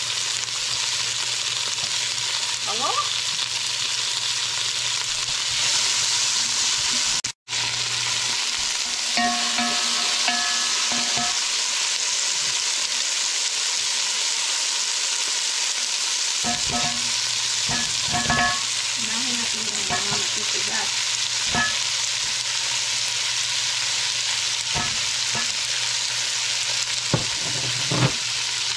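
Onion, garlic and tomato sizzling in hot oil in a large pot as they are stirred with a wooden spoon, with occasional light knocks of the spoon against the pot. The steady sizzle breaks off for an instant about a quarter of the way in.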